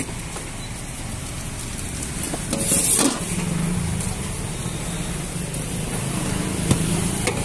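Roadside traffic noise with a motor vehicle engine running close by, and a short loud hiss about three seconds in.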